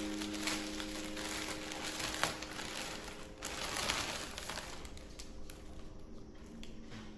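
Thin plastic wrapping crinkling and rustling as artificial tulips are handled and pulled out of their plastic sleeve, busiest in the first four seconds or so and thinning after. A held music chord fades out in the first few seconds.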